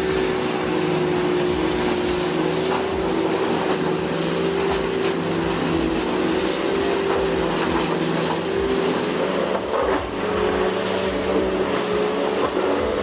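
Heavy diesel engine of a Morbark 1300 tub grinder running steadily under load, with scattered knocks and cracks from stumps being ground in the tub. The engine note shifts slightly about ten seconds in.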